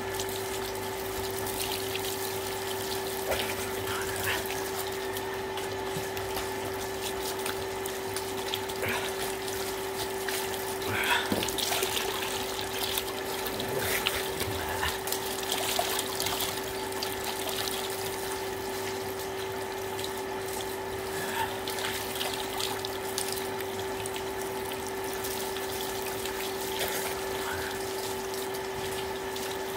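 Water pouring from a hose over a bather's head and body and splashing down, over the steady hum of a water pump. The splashing is busiest about halfway through.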